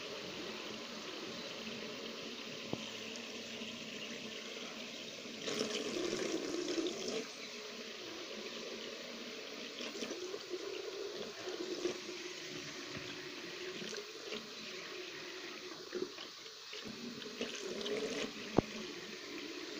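Bathroom sink tap running in a thin stream into a ceramic basin, with louder, uneven splashing at times as a hand and a pink toy go under the water. A single sharp click comes near the end.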